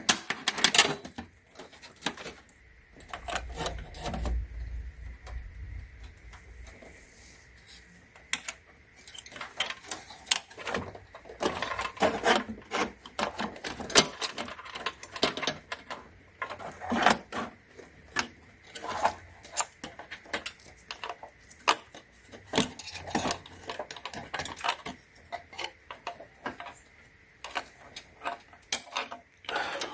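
Irregular clicks, taps and clatter of desktop computer parts and tools being handled, with a brief low rumble a few seconds in.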